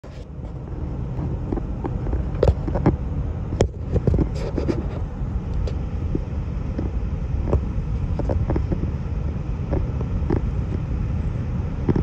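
Car road noise heard inside the cabin while driving on a wet, snowy road: a steady low rumble with scattered short clicks and knocks. The sound comes in over the first second.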